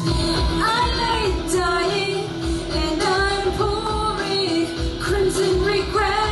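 A woman singing a melody into a microphone over a backing track with a steady beat.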